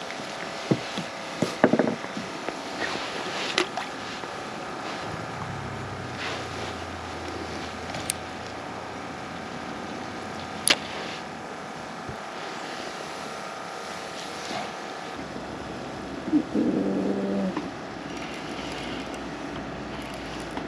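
Steady mechanical drone, with a deeper hum coming in about five seconds in, under a few sharp clicks and knocks of fishing tackle being handled on a wooden pier. A short pitched sound comes about three-quarters of the way through.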